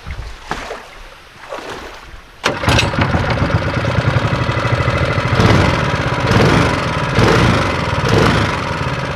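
A jon boat's mud motor starts about two and a half seconds in, after a few faint knocks, and then runs loudly, swelling and easing about once a second as it is throttled.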